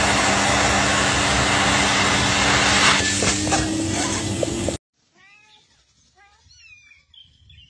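A vacuum cleaner running loud and steady, its note rising slightly about three seconds in, cutting off abruptly a little before five seconds in. Then faint, high cat meows, several in a row.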